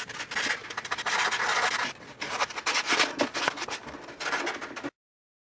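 Sheet of sandpaper rubbed by hand along the edge of a radiata pine frame, in irregular back-and-forth rasping strokes, stopping abruptly near the end.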